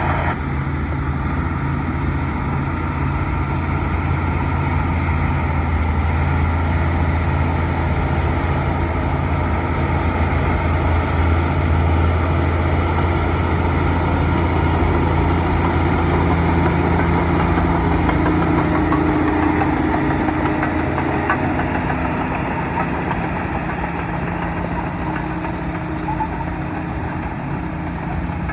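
Bulldozer's diesel engine running steadily under load as it works, with a deep engine drone; the engine note shifts somewhat around the middle and eases off slightly near the end.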